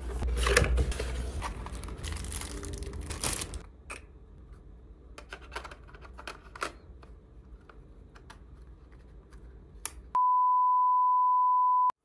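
A blade slitting the seal sticker on a cardboard lens box, with rustling and scraping of the box being handled, followed by quieter scattered clicks and taps of a camera and lens being handled. About ten seconds in, a steady high-pitched electronic beep holds for almost two seconds and cuts off abruptly.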